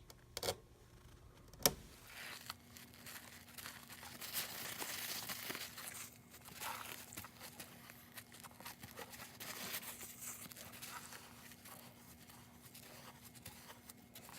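Two sharp clicks, then a long stretch of irregular rustling and crinkling, like paper or tape being handled close to the microphone.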